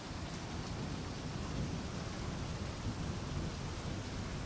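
Steady rain falling, with a low rumble of thunder.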